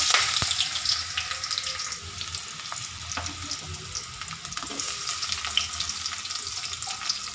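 Onions sizzling as they fry in hot oil in a kadai with whole spices. The sizzle is loudest at the start and settles within about two seconds into a steady hiss with scattered crackles and pops.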